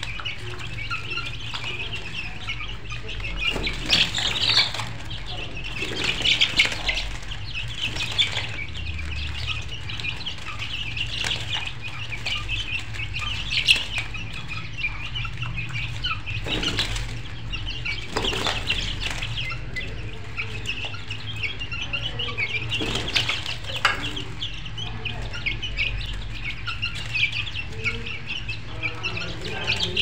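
A flock of chickens clucking and chirping continuously over a low steady hum, with a few louder rustling flurries.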